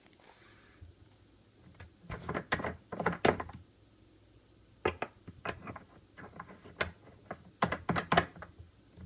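Irregular knocks and clicks in several quick clusters, from hard objects being handled and set down.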